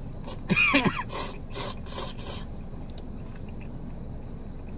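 A man slurping soba noodles: one loud slurp with a whistling, gliding pitch about half a second in, then a few shorter sucking slurps.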